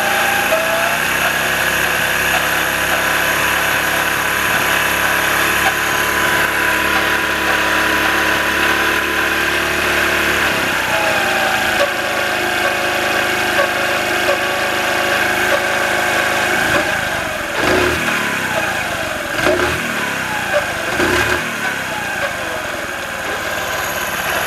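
Honda Little Cub's small single-cylinder engine running with the rear wheel turning. Its pitch shifts about ten seconds in, and it goes uneven and changing later on. The owner traces the engine's intermittent binding noise to a broken transmission bearing that lets the countershaft wobble.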